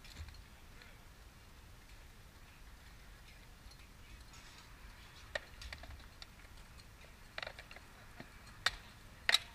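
Rattan sword blows striking shields and armour at some distance: a handful of sharp knocks, scattered through the second half, the loudest two close together near the end.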